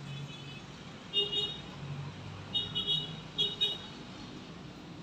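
A vehicle horn beeping several short times: once, then a quick run of beeps a second or so later, over a steady low background hum.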